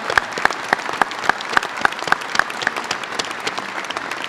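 A crowd applauding, with one nearby person's louder claps standing out at a steady pace of about four a second. Those close claps stop about two-thirds of the way in and the applause thins toward the end.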